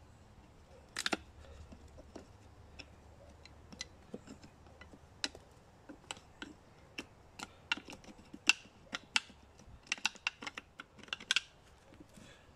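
Dry oak cracking and snapping in short, sharp clicks as a small bushcraft knife blade is levered sideways to pry flakes off the wood. The clicks come irregularly, with a louder group about a second in and a faster run near the end.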